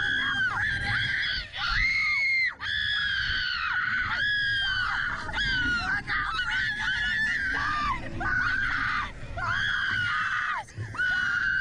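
Two young women screaming on a Slingshot reverse-bungee ride: a run of long, high-pitched screams, one after another with short breaks for breath.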